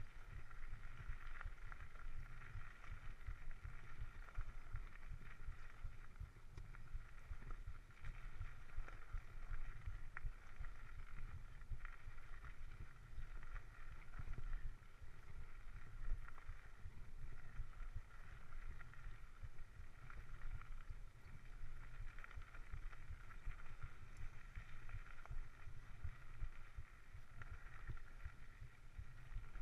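Mountain bike rolling over a dirt trail, heard through a chest-mounted GoPro: a constant, uneven low rumble of wind and trail vibration, with a steady higher-pitched drone above it.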